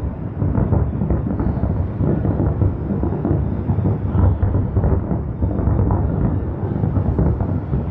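Aerial fireworks shells bursting in quick succession, their booms running together into a continuous rumble with many short, sharp pops on top.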